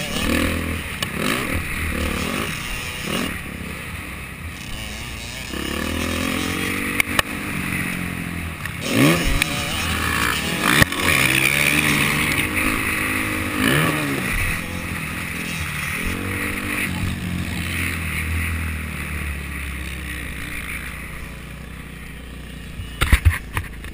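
Dirt bike engine heard from on board, revving up and falling back repeatedly as the rider works the throttle and gears around a motocross track. A few sharp knocks near the end.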